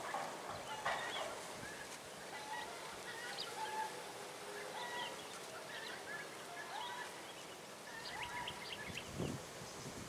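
Birds calling in the background: short, scattered calls, a few every second, with a brief handling noise near the end.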